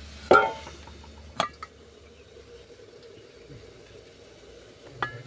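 Steel cookware clanking on a gas stove: a sharp metallic clank that rings briefly just after the start, a smaller ringing clank about a second later and a light clink near the end, over a steady low hum.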